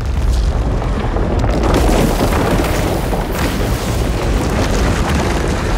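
Film sound effect of an earthquake: a deep, steady rumble with booms.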